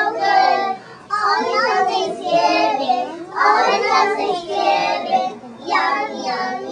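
A group of young children singing a song together in sung phrases.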